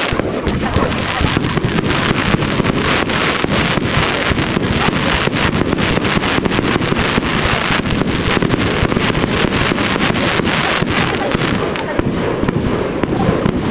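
Fireworks display going off in a dense barrage of bursts and crackling pops, many a second without a break.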